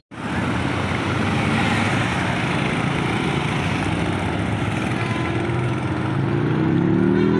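Motorcycle engines and road traffic running steadily, with a motorcycle riding past.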